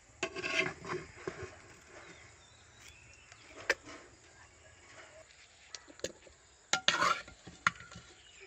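Metal spoon scooping the last flesh and juice out of a hollowed watermelon: scattered scrapes and sharp clicks of the spoon against the rind, with small splashes of juice, the loudest cluster about seven seconds in.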